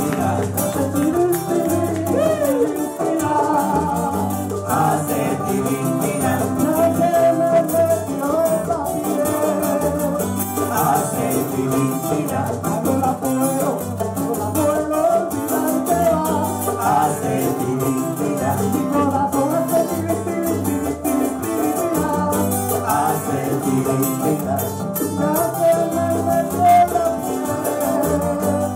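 Small Cuban group playing live: tres cubano and acoustic guitar over hand percussion and a cymbal, keeping a steady Latin rhythm.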